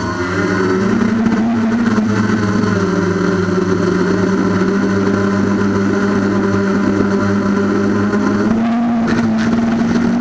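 Traxxas Aton quadcopter's electric motors and propellers buzzing loudly and steadily, close to the on-board camera. The pitch steps up about a second in, settles lower, and rises again near the end as the throttle changes.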